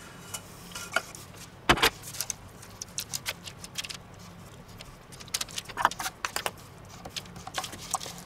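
Kitchen utensils working a sticky almond topping on baking trays: a steel pot, a wooden spatula and a metal spoon giving irregular clicks, taps and scrapes, with one sharper knock about two seconds in.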